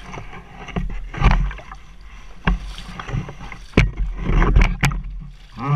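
A small boat being paddled through shallow water: a series of paddle strokes, splashing and knocking against the hull, over a low steady rumble.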